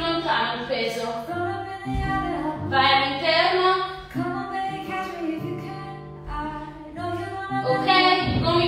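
Background music with a female singer over a bass line that changes note every second or so.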